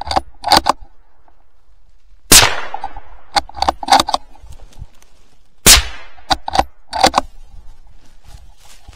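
Hunting rifle fired twice, about two and a half and five and a half seconds in, each crack echoing away, with a quick series of sharp metallic clicks after each shot as the rifle's action is worked to reload.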